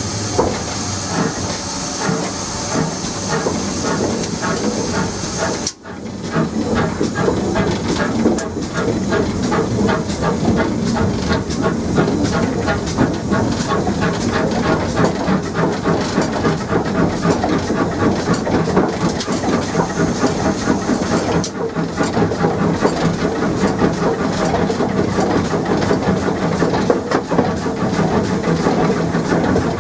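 Footplate sound of a GWR 57xx 0-6-0 pannier tank steam locomotive: steam hissing in the cab at first, then, after a sudden short drop about six seconds in, the engine running with a steady rhythmic beat and the clatter of wheels over the rails under the hiss.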